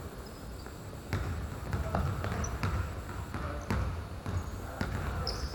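A basketball being dribbled, a run of irregular bounces on the court.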